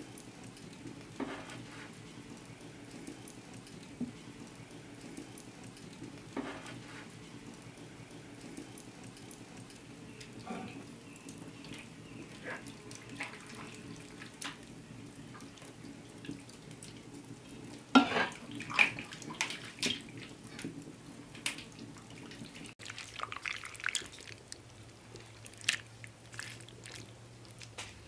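Wet squelching and clicking of moist shredded chicken being picked out of a bowl and spooned into a pastry-lined pie dish, with a louder run of wet clicks in the middle.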